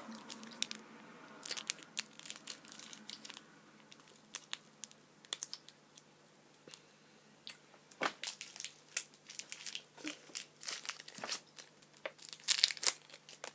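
Maoam chew wrapper crinkling and tearing as it is unwrapped by hand: spells of sharp crackles, loudest near the end.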